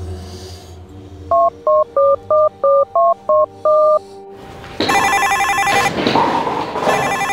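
Mobile phone keypad tones as a number is dialled: eight short two-note beeps over about two and a half seconds, the last one held longer. About a second later a mobile phone starts ringing with an electronic ringtone, which breaks off briefly and starts again near the end.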